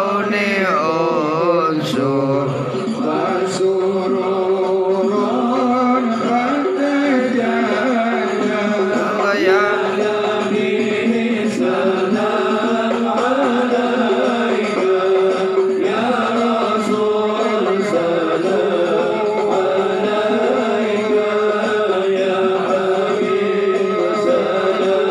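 A large group of men chanting a devotional song together, many voices singing one continuous melody.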